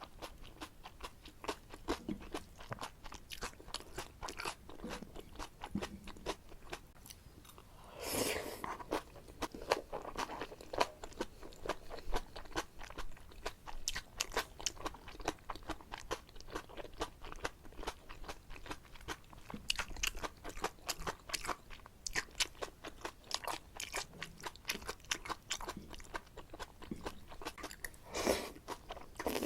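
Close-miked chewing of jajangmyeon: black bean noodles with shrimp and squid, eaten with many quick, irregular wet clicks and crunches. A longer, louder sound comes about eight seconds in and again near the end.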